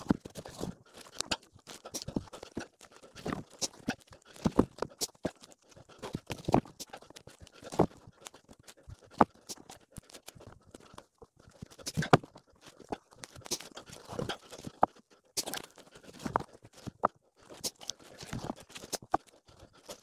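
Freshly sawn pine boards being handled and stacked: irregular sharp wooden knocks and clatters as boards are lifted, dropped and laid against one another, with boots crunching in snow.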